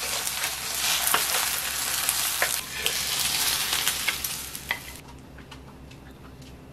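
Eggs sizzling in hot oil in a frying pan, with a few sharp clicks of utensil and pan, until the sizzle cuts off suddenly about five seconds in; after that only a few light clicks are left.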